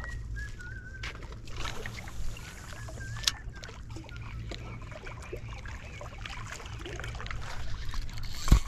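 Steady wind rumble on the camera microphone with water lapping against a seawall, a few faint whistled bird chirps in the first three seconds, scattered small clicks, and a sharp knock just before the end.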